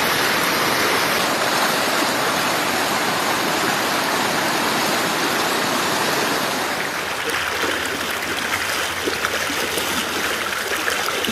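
Fast-flowing floodwater rushing in a steady, dense wash of water noise. About seven seconds in it becomes a little softer and more broken up.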